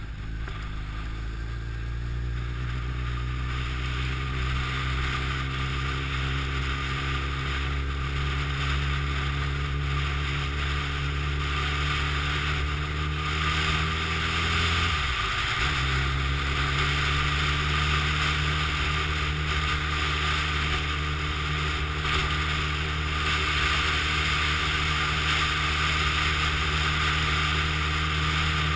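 Honda CBR1100XX Blackbird's inline-four engine pulling as the motorcycle accelerates, its pitch slowly rising. About halfway through, the revs drop sharply at a gear change and pick up again. Wind noise on the microphone grows louder in the second half.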